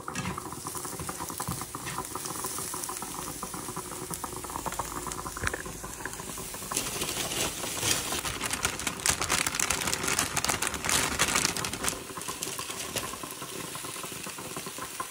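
Chopped vegetables (mushrooms, onion, zucchini) sizzling and crackling in a hot nonstick frying pan as they are tossed and stirred, louder for a few seconds in the middle.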